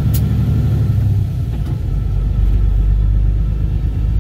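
Truck engine and road noise heard from inside the cab while driving: a steady low drone, with a short click at the start. The deepest part of the rumble grows stronger about two seconds in.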